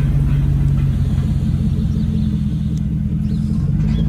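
Pickup truck engine running close by, a loud, steady, deep exhaust rumble.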